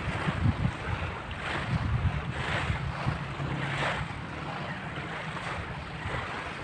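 Small waves washing onto a pebble shore, the hiss swelling and falling back about once a second, with wind rumbling on the microphone.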